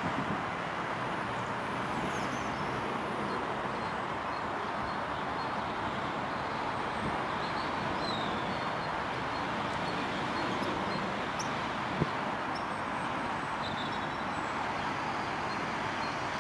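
Steady outdoor background hiss and rumble, with a few faint high chirps and a single sharp click about twelve seconds in.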